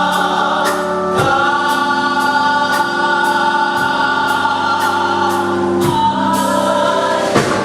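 Gospel choir singing long held chords over band accompaniment, with a steady drum and cymbal beat. The chord changes about six seconds in.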